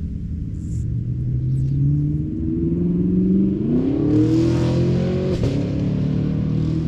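A car accelerating on a nearby road: its engine pitch climbs in steps and glides upward about three and a half seconds in, with a rush of tyre noise as it goes by around four to five seconds in.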